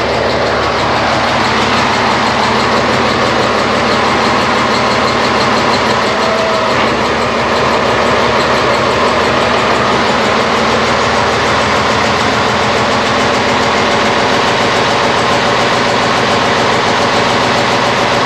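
Inboard boat engine running steadily on its first test run after installation.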